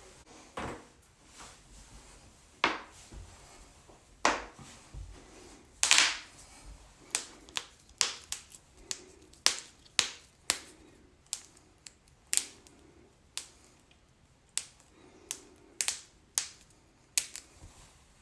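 Joints cracking: a long series of sharp pops, coming more closely together from about seven seconds in, with one longer, louder crack about six seconds in.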